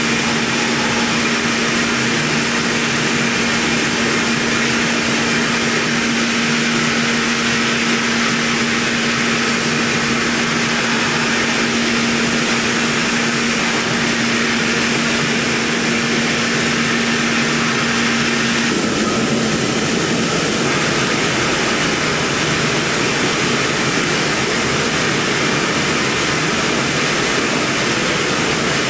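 Mikron VCE800 Pro vertical milling machine running, its spindle turning a small end mill through a metal block: a steady hiss with a steady hum that stops about two-thirds of the way through.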